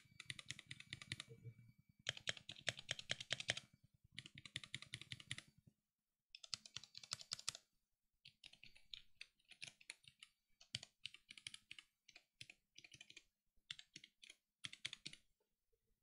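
Womier K61 60% mechanical keyboard with Gateron Yellow linear switches and PBT pudding keycaps, its keys pressed in fast runs of clacks. There are four quick bursts in the first half, then sparser, scattered key presses.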